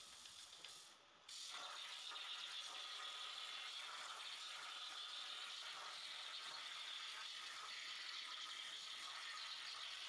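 CNC plasma cutter: the sound drops briefly, then about a second in the arc strikes with a sudden jump in level. The torch then cuts steel plate with a steady hiss.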